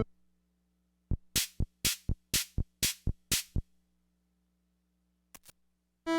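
Built-in rhythm box of a Yamaha PS-20 keyboard playing a short preset drum-machine beat, a dull low drum hit followed by bright hi-hat and snare-like hits about four a second, lasting a couple of seconds before it stops. Two faint clicks follow near the end, over a faint steady hum.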